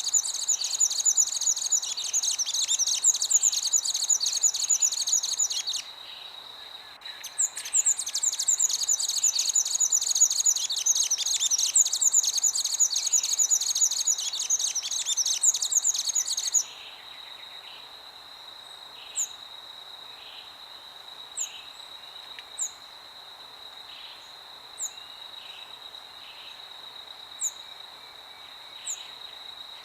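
Songbirds chattering in a dense, rapid stream, breaking off briefly about six seconds in, then resuming until about sixteen seconds in; after that only single short falling chirps come every second or two. Underneath run a steady high insect-like tone and a soft hiss of wind.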